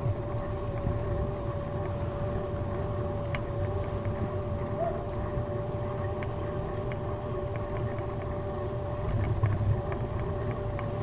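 Bicycle rolling along a smooth paved cycle path: a steady rumble of tyres and wind on the microphone, with a steady thin whine and a few faint ticks.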